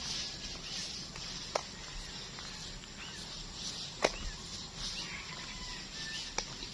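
Outdoor ambience: a steady high hiss with a few faint short chirps, broken by three sharp clicks spaced a couple of seconds apart, the middle one the loudest.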